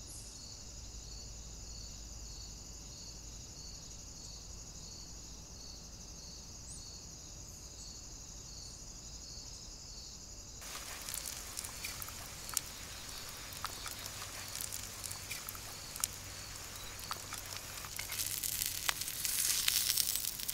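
Insects chirping in a steady, pulsing trill. About halfway through this gives way to the crackling sizzle of salmon searing in butter on a hot salt block, with sharp pops, loudest near the end.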